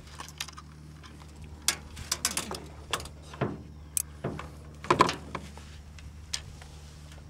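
Irregular knocks, clicks and thumps from a landed snook being handled and laid against a measuring board on the boat. The loudest cluster comes about five seconds in, over a steady low hum.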